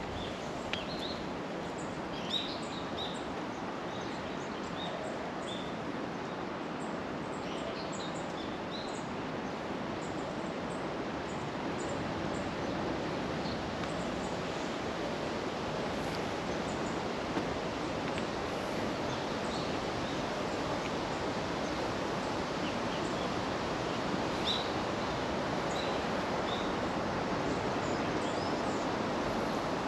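Outdoor animal ambience: a steady wash of noise with scattered short, high chirps, more of them in the first few seconds and again past the middle.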